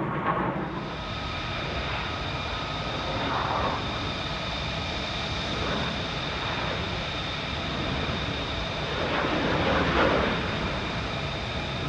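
Military jet aircraft passing overhead: a steady jet engine rush with a high whine, swelling a little near the end.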